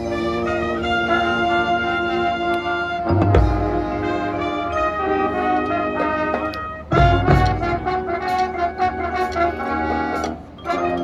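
High school marching band playing live, its brass section holding loud sustained chords. Heavy low full-band hits land about three seconds and seven seconds in, and the sound briefly drops just before the end.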